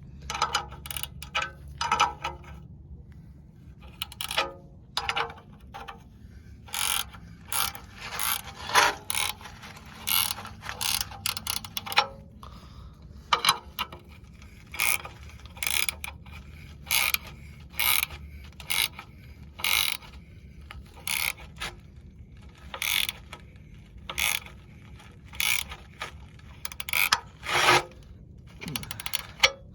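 Hand socket ratchet cranked back and forth, a short burst of clicking about once a second, tightening threaded fittings coated in thread sealant into a new radiator.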